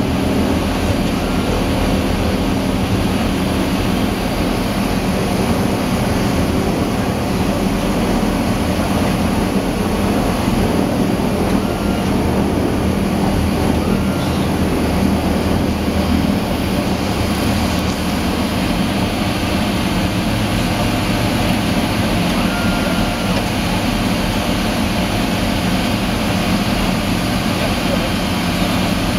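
A DHC-6 Twin Otter's two PT6A turboprop engines and propellers running steadily, heard from inside the cabin as a constant low drone with no rise in power.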